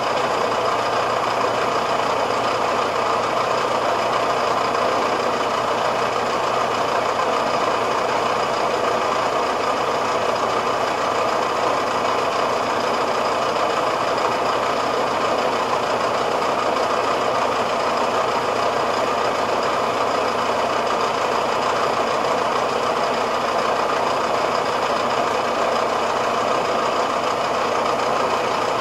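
Farm tractor's diesel engine running steadily, an even drone that holds the same speed throughout.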